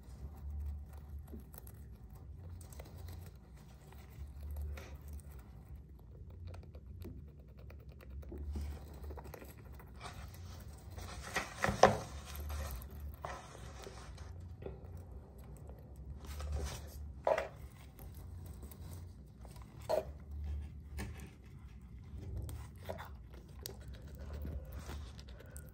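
Hamster scrabbling at the foot of a painted wall: light scratches and scrapes, with a few sharp clicks, the loudest about twelve seconds in, over a low uneven rumble.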